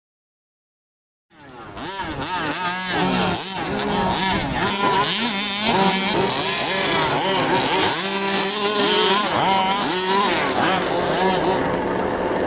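Several electric RC cars' motors whining together, their pitch sweeping up and down over and over as the throttles are blipped. It starts after about a second of silence.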